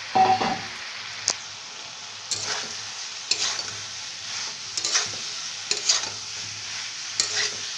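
Fried baby corn being stirred through a sizzling sauce in a hot pan: a steady frying hiss with irregular scrapes and knocks of the stirring utensil against the pan, roughly once a second.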